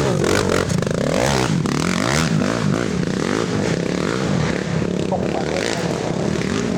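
Racing ATV engines revving hard, several at once, their pitch rising and falling as the riders work the throttle through the course.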